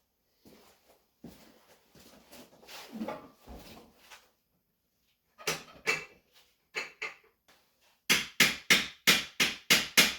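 Repeated hammer blows on stuck parts during a Subaru EJ25 engine removal, knocking them apart. Light clanks and handling noise come first, then two sharp blows, then a quick run of about eight loud strikes at roughly four a second near the end.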